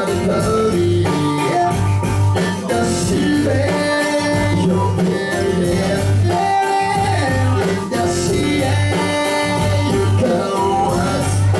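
Live pop music: a Korg synthesizer keyboard played over a steady bass beat, with a voice singing into a microphone through a club PA.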